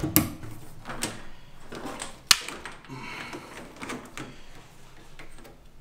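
Ethernet-type communication cables being handled and plugged into a battery's RS-485 ports: cable rustling with several clicks, the sharpest a little over two seconds in.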